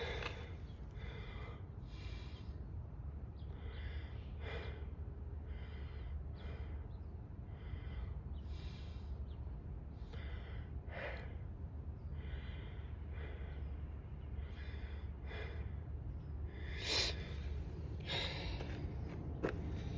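Breathing sounds, a short breath or sniff every second or two, over a steady low hum.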